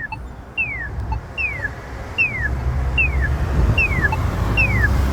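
Polara iNS accessible pedestrian signal push button sounding its locator tone: a short falling chirp repeated evenly about every 0.8 s. Low traffic rumble runs underneath.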